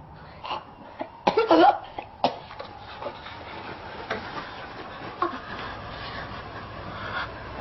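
A woman sick from starvation coughing in bed, loudest in a burst about a second and a half in, followed by a sharp click and a few fainter sounds.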